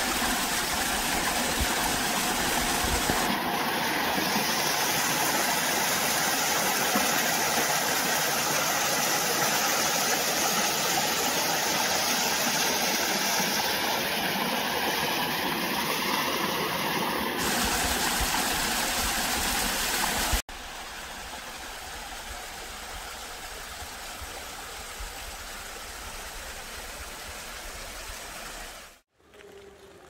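Steady, loud rush of falling water. It drops suddenly to a quieter rush about two-thirds of the way in.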